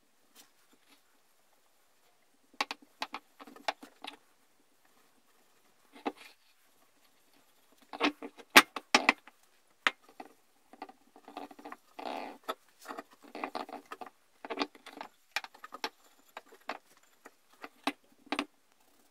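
Cloth rag rubbing and wiping oil over a hatchet's wooden handle and steel head, with scratchy rustling and irregular light clicks and knocks as the hatchet is handled on its wooden block.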